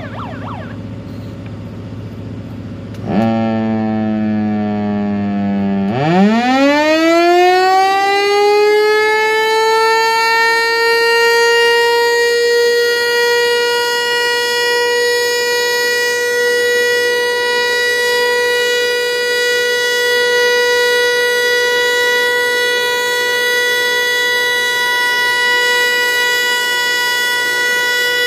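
Federal Signal Eclipse 8 outdoor warning siren on test. After a low hum and a louder low tone that starts about three seconds in, the siren winds up about six seconds in: its pitch climbs quickly, then levels off into a steady tone that holds.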